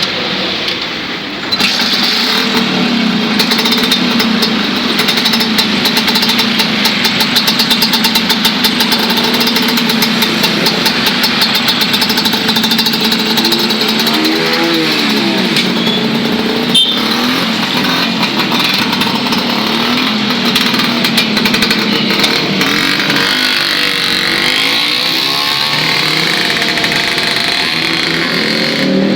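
Two-stroke single-cylinder engine of a tuned, bored-up Vespa Super 150 scooter running, getting louder about a second and a half in, then revved up and down a few times.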